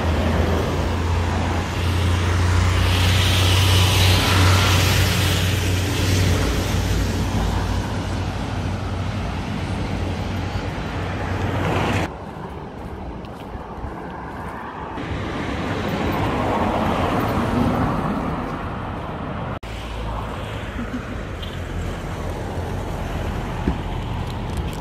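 Road traffic heard from the roadside: cars passing with a steady tyre-and-engine hiss, swelling as one passes a few seconds in and again as another goes by about two thirds of the way through. The sound changes abruptly twice.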